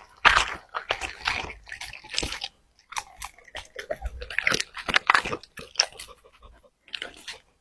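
A dog crunching and chewing food in irregular bites, with short pauses between mouthfuls.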